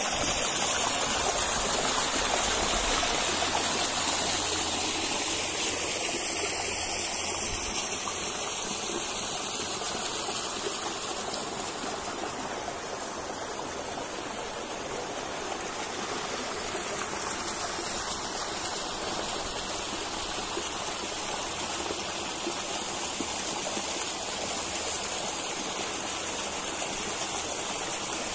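Steady rushing and splashing water from a small waterfall, its flow cut to two of its five streams in the dry season. The hiss dips slightly in level about halfway through, then comes back.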